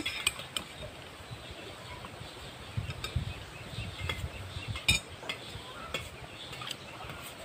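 Metal spoons and forks scraping and clinking against plates while food is scooped, scattered light clicks with the sharpest about five seconds in.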